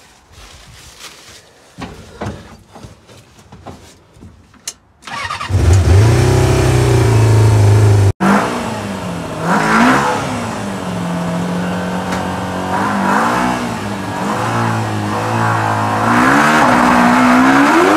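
Suzuki GSF-400 inline-four motorcycle engine swapped into a Kawasaki Mule side-by-side, coming in loud about five and a half seconds in and revving, its pitch rising and falling, then holding steady, then climbing again near the end. A few quiet clicks and knocks come before it.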